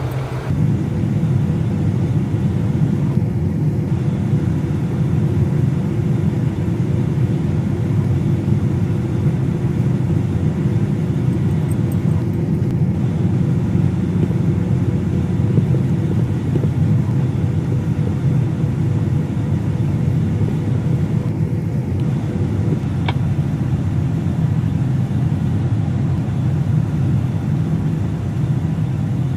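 A motor vehicle driving, with a steady low rumble of engine and road noise.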